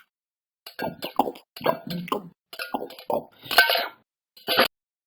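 A run of short wet gulping and plopping mouth sounds with a few light clinks, as of a boy eating soup and drinking; the bursts come in quick succession with brief gaps.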